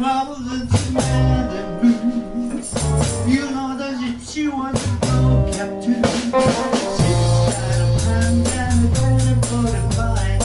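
A small live band playing a song: drum kit with steady hits, electric guitar and bass, with a singer's voice.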